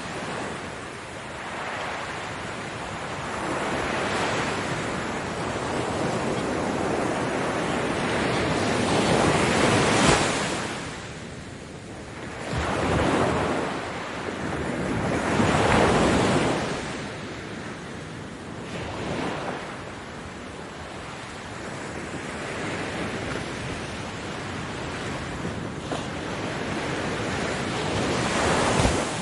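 Ocean waves breaking and washing up a beach, the surf swelling and ebbing every few seconds, with the heaviest breakers about a third of the way in and just past halfway.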